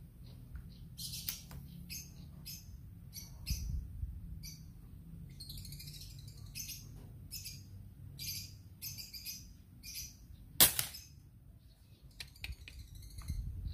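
A single sharp report from the GCMAG air rifle firing a pellet, about ten and a half seconds in. Birds chirp repeatedly throughout.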